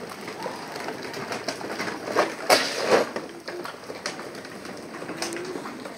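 Plastic wheels of children's pedal ride-on toys rolling and rattling over rough concrete, with a couple of louder knocks near the middle.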